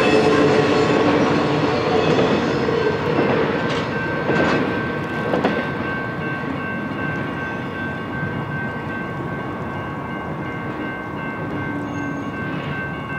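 An intermodal freight train's last container and trailer cars roll past with wheel clatter and a few sharp knocks about four to five seconds in. The rumble then fades as the train pulls away. A steady, high ringing tone carries on beneath the fading rumble.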